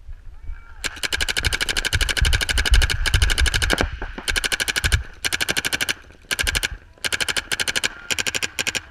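Paintball marker firing fast strings of shots, about ten a second, in bursts broken by short pauses, with a steady whine running under the shooting.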